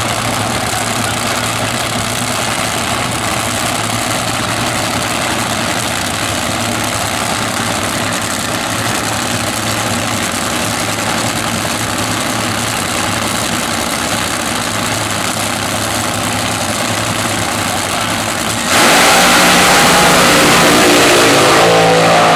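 Supercharged nitromethane-burning fuel altered drag racing engines running at a steady, loud idle, then about 19 seconds in a sudden, much louder full-throttle blast as both cars launch, the pitch stepping upward as they accelerate away.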